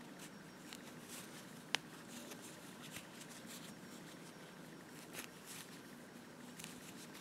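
Faint rustling and scratching of yarn being pulled through stitches with a metal crochet hook, working single crochet. A single sharp click sounds a little under two seconds in.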